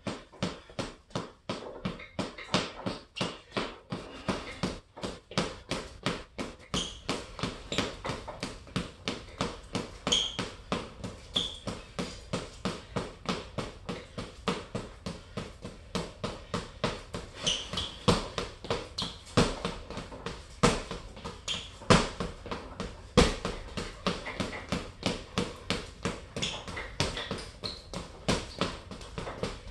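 Boxing gloves punching a hanging Everlast heavy bag in a steady run of thuds, about three a second, with a few harder blows about three quarters of the way through.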